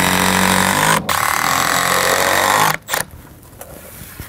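Cordless drill-driver running steadily at an even pitch as it drives a long screw into a timber batten, with a brief break about a second in; it stops sharply near three seconds in.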